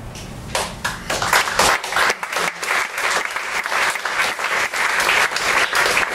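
Audience applauding: a dense patter of many hands clapping that starts about half a second in and swells within the first second, then carries on steadily.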